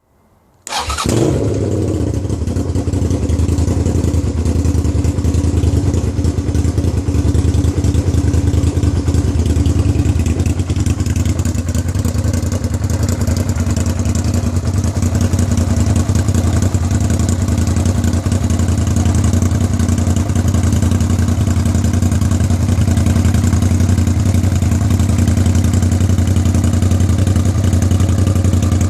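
Suzuki SV650's V-twin engine starting a second in with a brief rev, then idling steadily with an even pulse. The owner is filming it because the engine makes a noise he considers abnormal.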